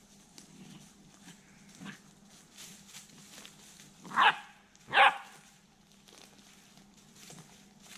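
Small dog barking twice, about a second apart, near the middle, over faint footsteps rustling through dry leaf litter.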